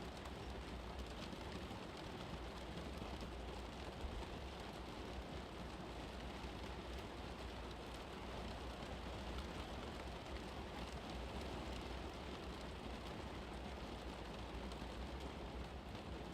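Steady rain ambience: an even, unchanging hiss of rainfall with a constant low hum beneath it.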